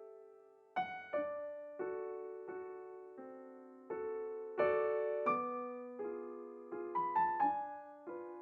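Background music of slow, gently struck piano chords and single notes, each left to ring and fade.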